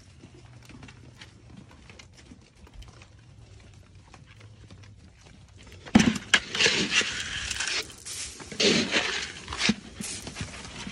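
Deer hooves clicking lightly on a concrete driveway, then two loud rattling bursts of dry feed corn being poured and scattered onto the concrete, about six and eight and a half seconds in.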